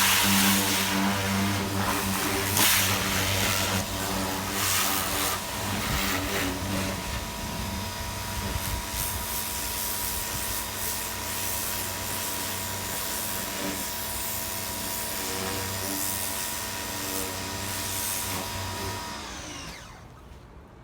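Pressure washer running, its motor humming steadily under the hiss of the water spray, which changes as the jet moves over the car. The washer shuts off about a second before the end.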